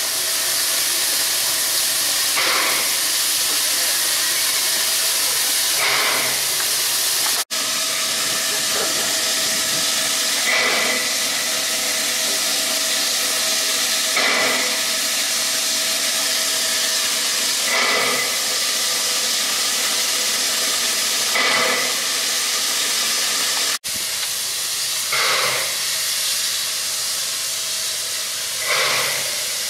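NGG16 Garratt steam locomotive standing with steam hissing steadily, with a louder surge of steam about every three and a half seconds.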